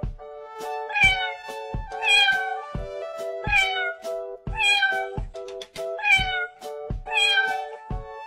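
Cartoon cat meows, about six short falling calls repeated at an even pace, over bouncy children's music with a steady beat.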